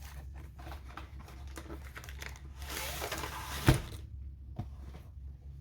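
Diamond painting kit's packaging being opened by hand: small taps and scrapes, then a burst of crinkling about three seconds in that ends in one sharp knock.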